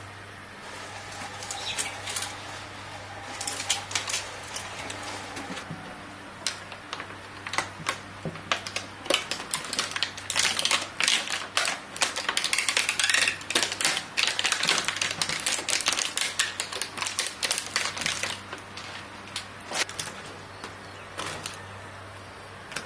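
Rapid runs of sharp knocks from a kitchen knife chopping on a cutting board. The chopping is densest and loudest in the middle stretch, over a steady low hum.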